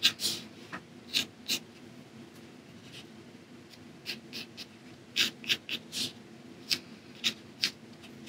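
Mechanical pencil sketching on gesso-coated hot-press watercolour paper: a series of short, scratchy strokes, grouped in twos and threes.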